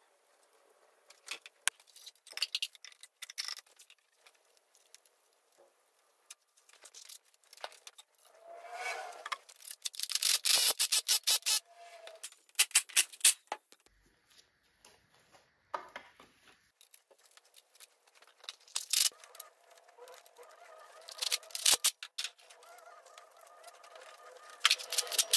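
Metal hand tools working on a bare engine block while a turbocharger is fitted: scattered clicks and knocks, with a run of rapid clicking about ten seconds in.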